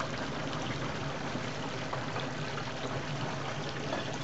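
Hot peanut oil sizzling and bubbling steadily around a whole turkey deep-frying in a large pot.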